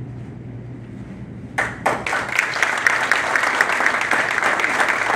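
A group of people breaks into applause about one and a half seconds in and keeps clapping steadily. Before that there is only a low steady room hum.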